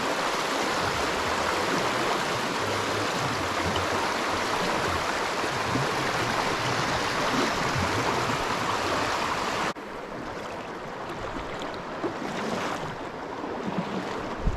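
Steady rush of flowing stream water. About ten seconds in it drops suddenly to a quieter, thinner flow.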